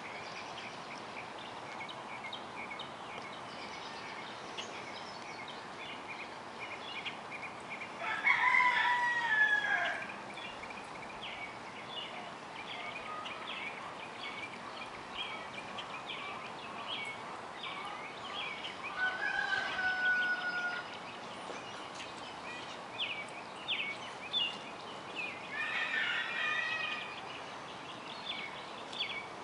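A rooster crows three times, the first about eight seconds in and the loudest, the others near the middle and near the end, over steady high chirping of small birds.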